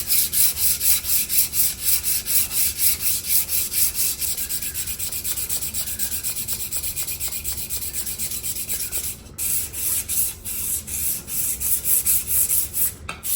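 Quick back-and-forth hand rubbing strokes, sanding and polishing the finish of a Stanley No. 3 hand plane, several strokes a second with short breaks about nine and thirteen seconds in.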